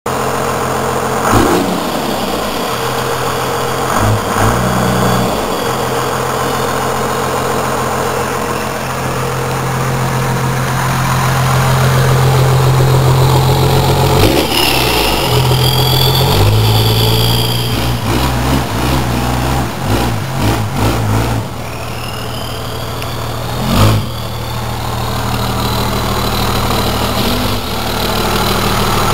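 A 1996 Cummins 12-valve 5.9-litre inline-six diesel with a 4-inch MBRP turbo-back exhaust, idling and revved up a few times. Each rev brings a turbo whistle that rises and falls with the engine.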